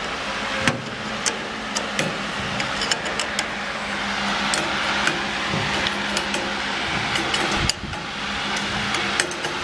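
Ravioli-making machine running with a steady hum as it extrudes a tube of dough, with sharp metallic clicks from a hook spanner knocking against the steel nozzle.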